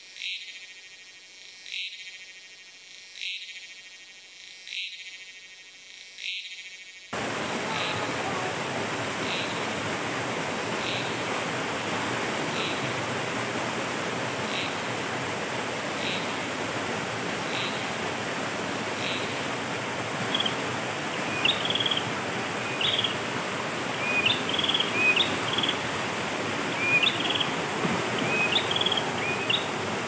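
A high, pulsed animal call repeating about every second and a half, then about seven seconds in the steady rush of a flowing stream cuts in suddenly and carries on. From about twenty seconds, short bird chirps join over the water.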